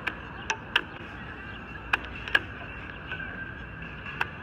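Chess pieces set down on a stone table and a chess clock's buttons pressed in quick alternation during a blitz time scramble: about six sharp clicks at uneven gaps, over a steady background hiss.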